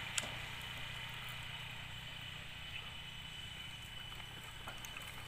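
Quiet, steady outdoor background: a low hum under a faint high hiss, with one short click just after the start.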